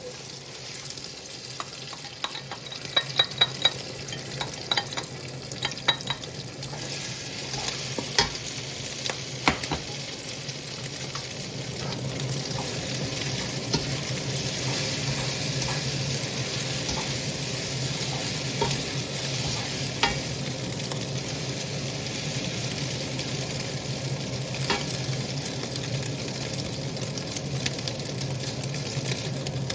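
Eggs stir-frying in hot oil in a pan, with a spatula clinking and scraping against the pan over the first several seconds. A steady sizzle then grows louder about twelve seconds in and holds.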